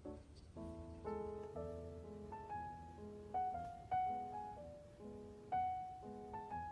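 Background piano music: a slow, gentle melody of single notes and soft chords, each struck and left to fade.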